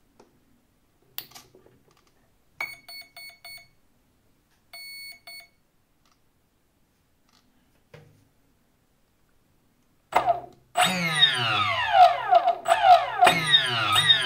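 A click as the LiPo battery is plugged in, then the Flycolor brushless ESC beeps through the motor: four short high beeps for a 4-cell (4S) LiPo, then a longer confirmation beep for zero throttle. From about ten seconds in, louder background music with sweeping falling tones takes over.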